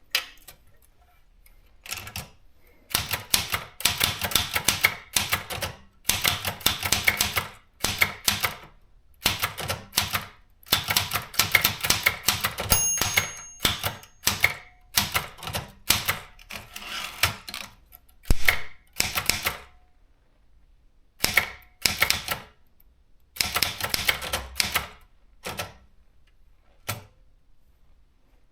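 Keys of a Privileg JP 1 manual typewriter striking in quick runs of a second or two, with short pauses between them. A brief ring about 13 s in, like the margin bell.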